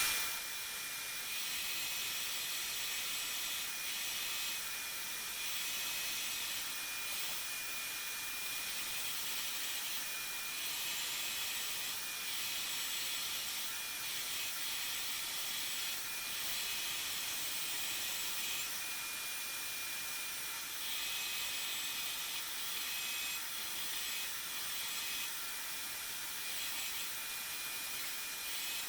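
Carpet cleaner running steadily on upholstery and carpet, with a high motor whine over a continuous suction hiss that swells slightly as the tool is worked back and forth.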